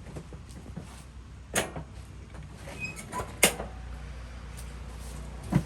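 A few sharp knocks and clunks of things being handled, the loudest about one and a half and three and a half seconds in, with a brief squeak between them, over a low steady hum.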